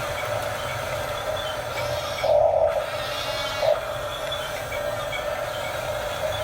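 Huina 1569 remote-control bulldozer's small electric motors and gearbox whirring as it drives on its tracks. The whirr gets louder briefly about two seconds in and again about a second later.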